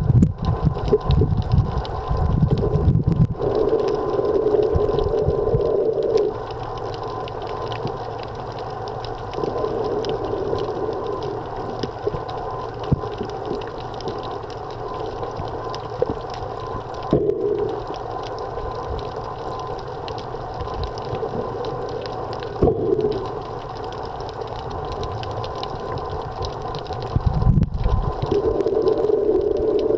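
Muffled underwater sound picked up by a camera below the sea surface: a steady low rush with low rumbling, swelling up for a second or more every few seconds.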